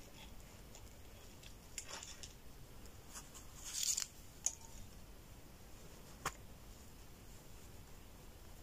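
Faint rustling and a few light ticks of thin black jade cord being handled and pulled through the fingers while tying snake knots; the loudest is a short rustle about four seconds in, with single sharp ticks shortly after and about six seconds in.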